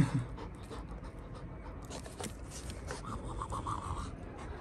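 Dog panting in quick, even breaths, clearest in the second half.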